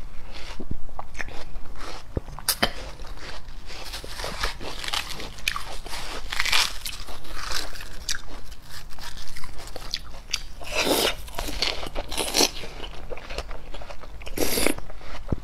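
Juicy watermelon flesh being bitten and chewed off a spoon, close-miked: many small wet, crunchy clicks and crackles, with a few louder, longer wet sounds in the last few seconds. A metal spoon scooping into the melon's flesh is mixed in.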